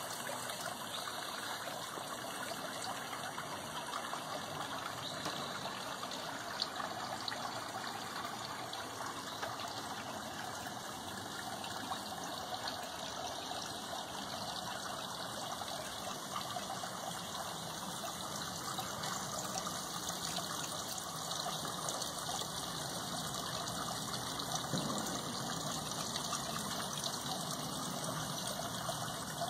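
Water trickling steadily from a garden water feature.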